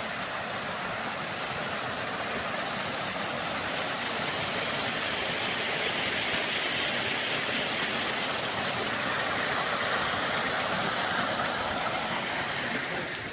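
Steady rush of falling water from a waterfall, dropping away near the end.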